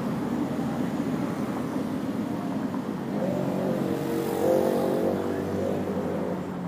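Street traffic rumbling steadily, with a motor vehicle engine growing louder and passing, loudest about four to five seconds in.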